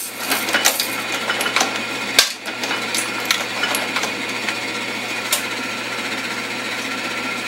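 Monotype Supercaster type-casting machine running on cast, a steady mechanical clatter with a few clicks early on and one sharp clack about two seconds in. It is casting a single large hot-metal type character from a flat matrix.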